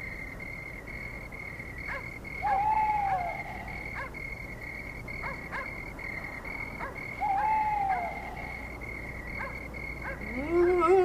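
Night-time sound effects: a steady high chirping chorus with scattered clicks, and an owl hooting twice, each hoot a single arched call. Near the end a wavering, rising note slides in as the theme music begins.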